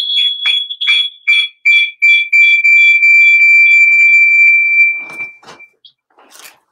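A loud, high-pitched electronic whistle, first pulsing about three times a second and jumping between two pitches, then held steady on the lower pitch for about three seconds before cutting off. A few soft clicks follow near the end.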